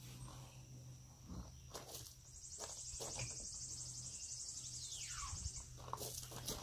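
Summer insect noise: a steady high whine with a pulsing, buzzing trill from about two seconds in to nearly six seconds. Near the end a single call glides down in pitch. A few light knocks and scuffs fall in between, over a faint steady low hum.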